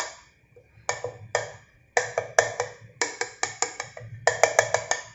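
Knife tip jabbing through a thin sheet of rolled papdi dough onto the metal plate beneath, each jab a sharp tap. They come singly at first, then in a quick run of about four a second from about two seconds in. The dough is being pricked so the papdi won't puff up when fried.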